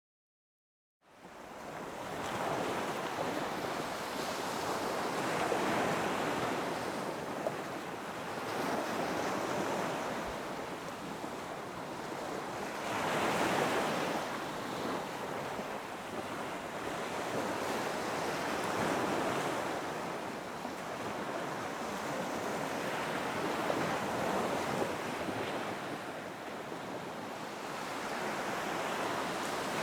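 Ocean surf on a beach: waves breaking and washing in, swelling and easing about every five seconds. It comes in abruptly from silence about a second in.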